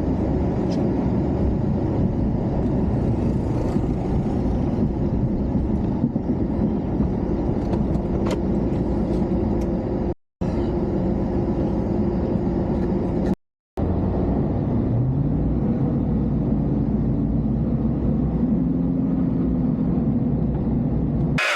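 Engine running steadily, its pitch climbing and then holding about two-thirds of the way through; the sound cuts out completely twice, briefly.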